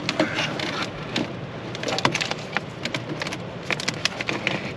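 Zip-tie cutters snipping and crunching through an old truck wiring harness: a quick, irregular run of sharp snaps and crackles.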